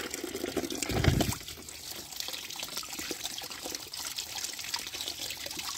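Water trickling and splashing in a plastic bucket as a toy truck is lifted out dripping, over a steady running-tap hiss. There is a low thump about a second in.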